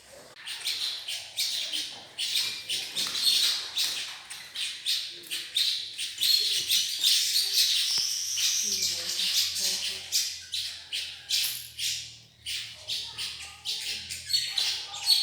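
Zoo birds squawking and chirping: a dense run of short, high calls, several a second, with a brief lull about twelve seconds in.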